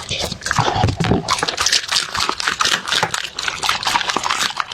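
A dog eating, with many quick, irregular crunching and clicking chewing sounds.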